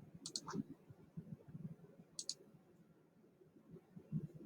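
Computer mouse button clicks, mostly in quick pairs, twice in a few seconds, over soft low knocks of handling on the desk.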